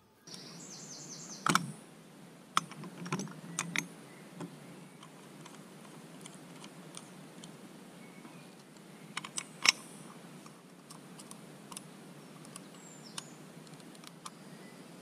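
Scattered clicks and knocks from a hand drill and its auger bits being handled and fitted on a tree stump. The sharpest knocks come about a second and a half in and again near ten seconds. A bird chirps briefly at the start.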